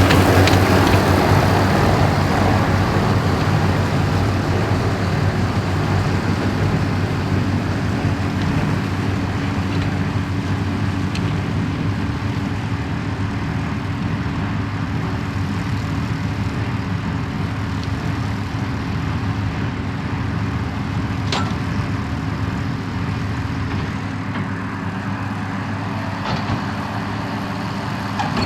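New Holland TM155 tractor running steadily under load while pulling a Claas Variant 385 round baler. The sound slowly grows fainter, with a few faint short clicks over it.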